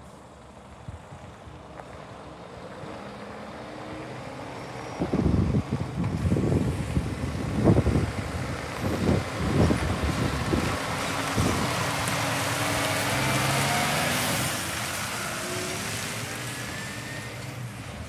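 Scania R490 truck's diesel engine running as the heavy truck pulls out and passes close, with uneven low rumbles. It then accelerates away with a rising whine as the revs climb, fading with distance.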